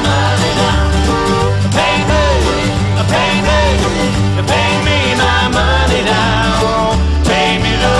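Upbeat folk song in a country or bluegrass style: plucked strings over a steady bass beat, with a sliding melody line on top.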